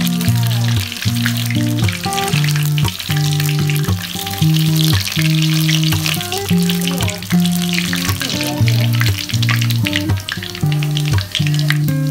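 Breaded chicken deep-frying in hot oil, a dense, steady crackling sizzle, with background music of slow held notes over it.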